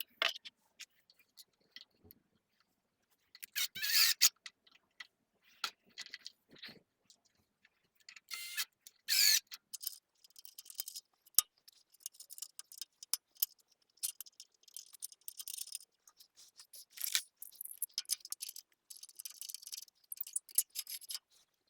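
Irregular clicks, light knocks and short scraping sounds of hands-on work in a workshop, with no motor running.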